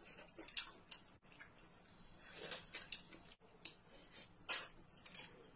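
Close-up eating sounds: a series of short, sharp slurps and clicks as meat is picked out of spicy stir-fried sea snail shells and eaten.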